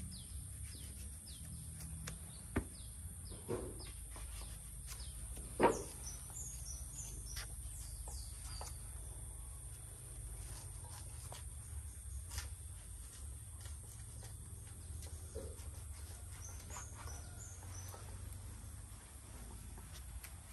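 Knives peeling and cutting a root tuber: scattered scrapes and short clicks, the loudest about six seconds in. Birds chirp briefly a few times over a steady high hiss.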